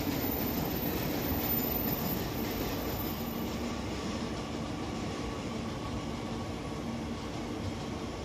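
JR Kyushu 813 series electric train pulling slowly into the platform, its running noise easing as it slows toward a stop, over a steady low hum.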